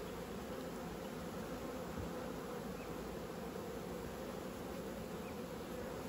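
Honeybee colony humming steadily from an open brood box.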